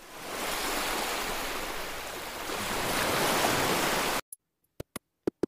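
Ocean waves washing over shore rocks: a steady surf hiss that fades in and cuts off abruptly about four seconds in. A few sharp clicks follow in the quiet.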